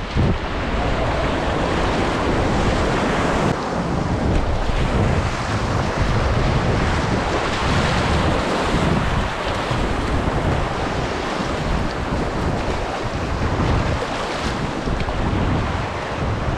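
Whitewater rapids rushing and splashing around a raft, with wind buffeting the microphone.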